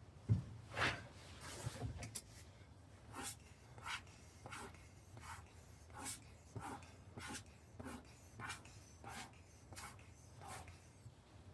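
About a dozen short puffs of blown air, evenly spaced roughly two-thirds of a second apart, clearing loose sand out of a sand-casting mould. A few dull knocks of the mould being handled come shortly before.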